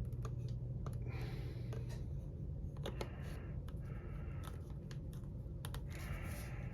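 Small plastic vacuum attachments and packaging being handled: scattered light clicks and short rustling, over a steady low hum.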